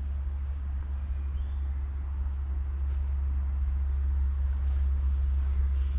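Insects trilling steadily on one high note, over a steady low rumble, with a few faint ticks.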